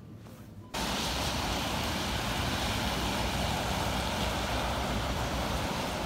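Strong wind buffeting the microphone over passing road traffic, starting abruptly about a second in after a brief stretch of quiet indoor room sound.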